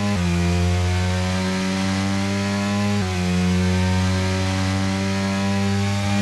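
BMW S1000RR's inline-four engine running at steady held revs with a buzzy tone, its pitch stepping slightly just after the start and again about three seconds in.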